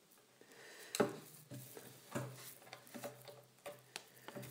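Handling noise of a Canon EOS 5D Mark III camera body and BG-E11 battery grip: a string of small plastic clicks and taps as hands work the parts, the sharpest click about a second in.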